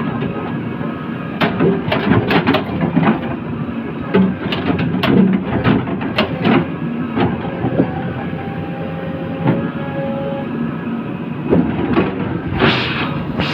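JCB 3DX backhoe loader's diesel engine running steadily, with repeated sharp metallic clanks and knocks from the working machine.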